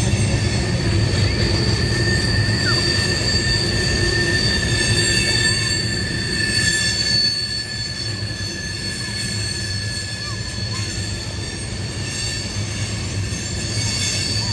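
Freight train of trash-container flatcars rolling past, a low rumble of steel wheels on rail with a steady high-pitched wheel squeal over it, from flanges grinding through the sharp curve. The sound eases slightly about halfway through.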